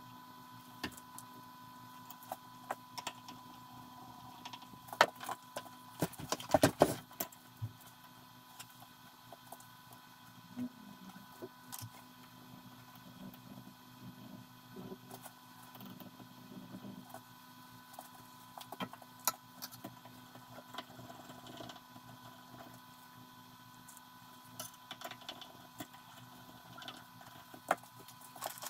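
Scattered small clicks and knocks of a hand screwdriver, screws and metal clamping bars as IGBT transistors are fastened down onto a welding inverter's heatsink, with a dense run of louder knocks about five to seven seconds in. A faint steady hum runs underneath.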